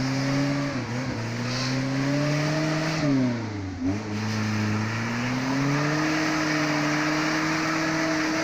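Off-road 4x4's engine pulling under load as it climbs an obstacle. The engine note rises slowly, drops sharply about three and a half seconds in, then climbs again and holds high and steady.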